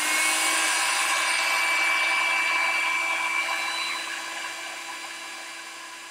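Small handheld craft dryer running: a steady fan-motor whine with a high tone, drying freshly painted chalk paste. It eases off somewhat in the last couple of seconds.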